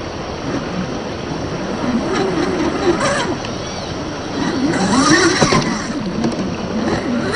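Electric drive of an RC rock crawler (INJORA 550 35T brushed motor on a HobbyWing QuicRun 1060 ESC) whining, its pitch rising and falling with the throttle as the truck climbs through a shallow stream, over steady rushing water. The tyres splash through the water about five seconds in.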